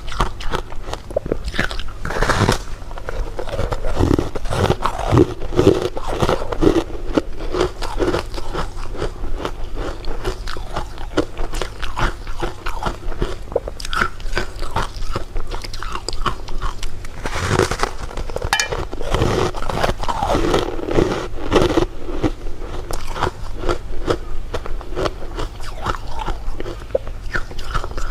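Close-miked eating: steady crunching bites and chewing, with a few louder bites among them.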